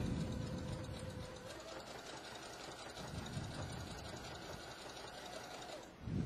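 Domestic sewing machine stitching a row with a twin needle: a steady motor whine with the rattle of the needle mechanism, speeding up about a second and a half in and stopping near the end.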